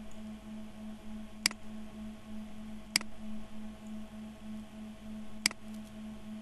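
Three sharp computer-mouse clicks, the first two about a second and a half apart and the third some two and a half seconds later, over a steady low electrical hum.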